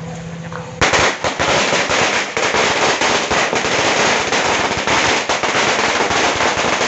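A long string of firecrackers going off, starting about a second in: a dense, rapid, continuous crackle of bangs. A steady low hum comes before it.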